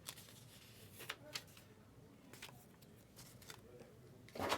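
Baseball trading cards being handled: faint scattered clicks and slides of card stock, then a louder rustle near the end.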